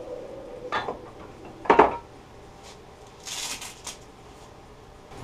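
Wood lathe's motor hum fading away as it stops, then two metal clanks with a short ring about a second apart, the second one louder, and a brief rustle.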